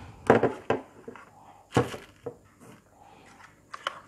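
Sharp plastic clicks and knocks from a USB radio programming cable and its plugs being handled close to the microphone. A few separate knocks, the loudest about a third of a second in and near two seconds in, with lighter ones near the end.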